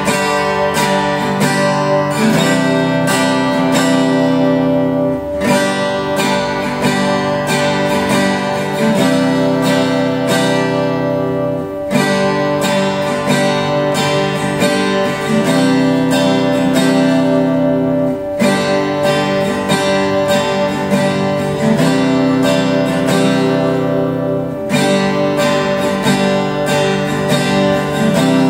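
Yamaha F310 steel-string acoustic guitar, newly restrung after a setup, strummed through a repeating chord progression, the chord changing about every three seconds.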